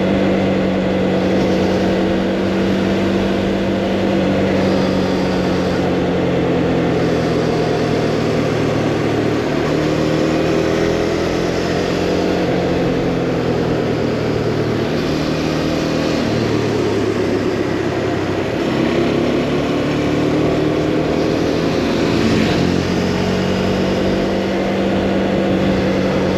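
Motorcycle engine heard from the rider's seat while riding, its pitch rising and falling every few seconds as the rider rolls on and off the throttle and changes gear, over steady wind noise.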